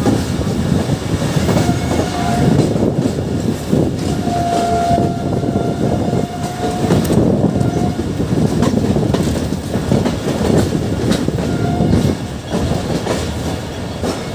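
Passenger train running, heard from an open coach doorway: a steady rolling rumble with wind and the clickety-clack of wheels over rail joints. A thin, steady horn note from the locomotive sounds briefly about two seconds in, holds for about three seconds from about four seconds in, and sounds briefly again near the eleven-second mark.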